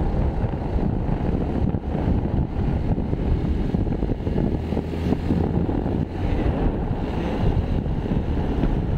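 Wind rushing over the microphone on a moving motorcycle, a steady low rumble, with the motorcycle running underneath it.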